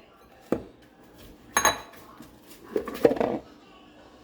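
Bowls knocking and clinking together as they are picked through and handled, a few separate clatters, the loudest about a second and a half in with a brief ring, then a quick cluster of knocks around three seconds in.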